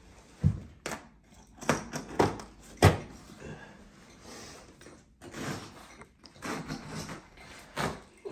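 Stretched carpet being pried up off the tack strip at a doorway edge with a hand tool, giving several sharp pops with scuffing and rustling in between. The crisp popping is the sign of a tight, properly stretched carpet biting well on the tack strip.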